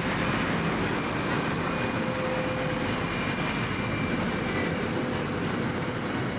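Pacific National container train hauled by NR class diesel-electric locomotives passing, giving a steady rumble of engines and rolling wagons on the rails.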